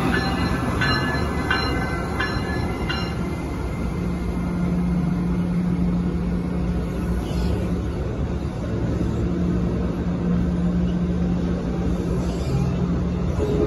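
Amtrak passenger train's stainless-steel coaches rolling past at low speed. For the first few seconds the wheels give a run of squeals and clicks, then there is a steady low hum and rumble.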